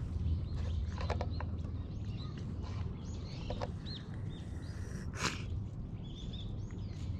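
Footsteps crunching over dry fallen leaves and grass, with a sharper crunch about five seconds in. Small birds chirp in the background over a steady low rumble.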